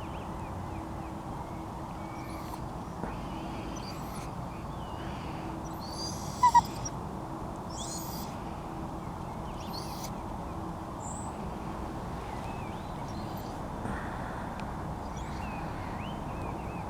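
A bird calling with low hoots repeated over and over, against steady outdoor background noise, with two short, sharp, loud sounds about six and a half seconds in.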